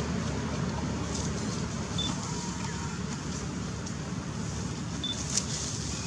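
Steady low outdoor rumble, like distant traffic, with two brief high chirps about two and five seconds in.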